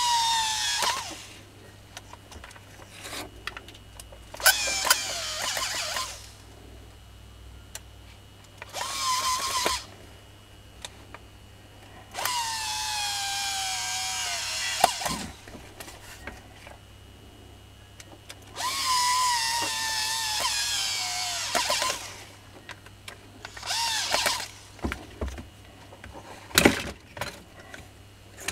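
Makita hammer drill's electric motor test-run in six short bursts during repair, each spinning up with a whine and winding down; the longer runs sag in pitch. A few knocks near the end.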